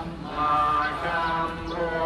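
A group of voices chanting together in unison: Buddhist chanting with long, slowly wavering notes. It pauses for a breath just after the start, then carries on.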